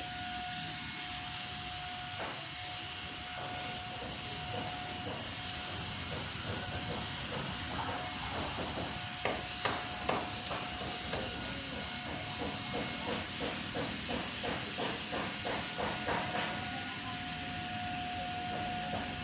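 Paint spray machine running with a steady hiss and a faint steady whine. Through the middle comes a run of light clicks, about two or three a second.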